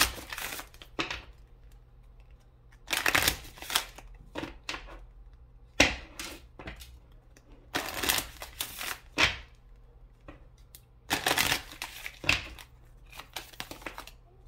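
A large deck of oracle cards being shuffled by hand, in short rustling bursts every two to three seconds, with a sharp snap of cards about six seconds in.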